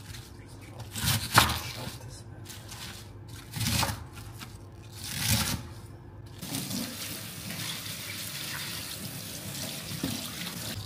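A knife cutting through a head of cabbage onto a wooden chopping board, a few separate crunching cuts, the loudest about a second in. From about six seconds in, a kitchen tap runs steadily onto cabbage pieces in a metal strainer over the sink.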